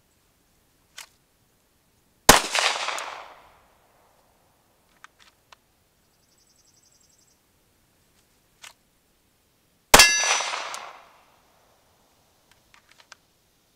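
Two single shots from a Glock 19X 9mm pistol about eight seconds apart, each a sharp report followed by a ringing decay. Faint clicks come between them.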